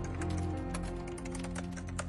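Computer keyboard keys clicking in quick, irregular typing, over background music with sustained low notes.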